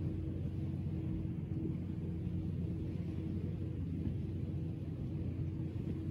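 A motor engine running steadily, heard as a low drone with a constant hum above it.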